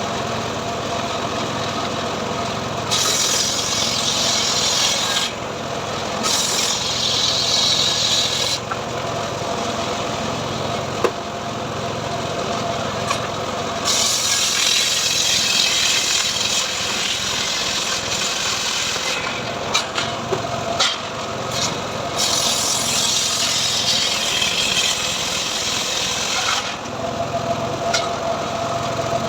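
Homemade engine-driven srekel sawmill saw cutting teak into boards. A steady running hum is broken by four long stretches of loud rasping as the blade bites through the wood.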